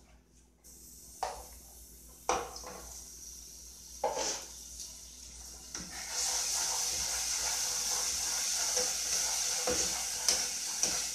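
Homemade seasoning frying in olive oil in a pot as it is stirred with a spoon: a few light knocks of the spoon in the first half, then a steady sizzle that comes up about six seconds in and keeps going.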